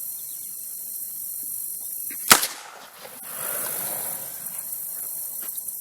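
A single sharp shot from a .357 Magnum revolver firing a full-power 158-grain load, about two seconds in.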